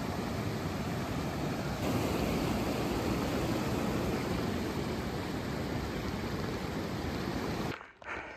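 Water flowing over the small rock cascades of a shallow creek, a steady rush that cuts off suddenly near the end.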